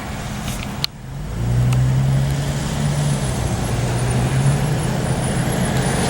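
Motor-vehicle noise: a steady rushing noise with a low, even engine hum. There is a sharp click and a brief drop just under a second in, after which the hum comes in louder.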